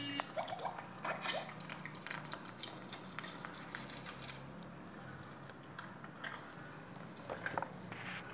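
Plastic toy-truck wheels rolling through soft slime, making sticky crackles, clicks and squelches, with a short squeak at the very start. A faint steady low hum runs underneath.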